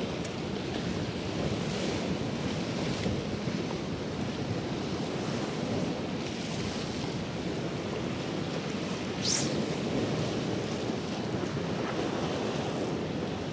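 Sea waves breaking and washing, with wind rumbling on the microphone. A short high hiss about nine seconds in.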